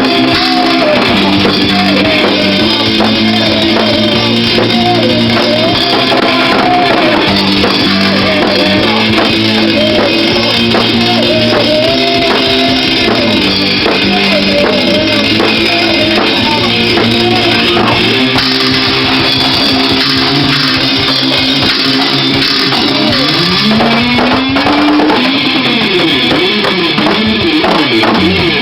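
Rock band playing live: electric guitar over bass and a drum kit, the lead line bending and wavering, with a rising slide a little past the two-thirds mark.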